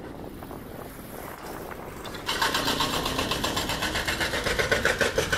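A motor engine starts up loudly about two seconds in and keeps running with a rapid, regular pulse, after a low wind rumble on the microphone.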